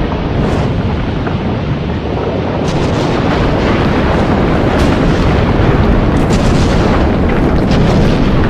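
Volcanic eruption sound effect: a loud, continuous rumbling roar with scattered sharp cracks throughout.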